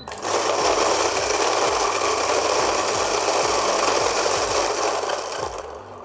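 Fellow Ode flat-burr electric coffee grinder grinding a 20 g dose of beans at its finest, espresso setting on stock burrs. It makes a loud, dense grinding noise that starts as it is switched on and falls away about five and a half seconds in as the beans run through.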